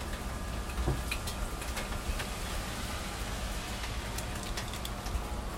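Steady rain falling, with scattered taps of drops and a low rumble underneath.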